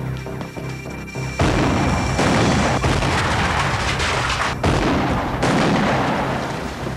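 Dramatic background music, then about a second and a half in a loud explosion erupts, followed by further blasts and the rumble of the fire.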